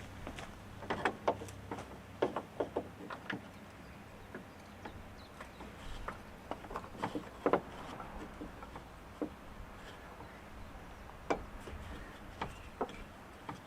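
Scattered clicks and light knocks of car parts being handled and fitted by hand in an engine bay, coming in short clusters with pauses between.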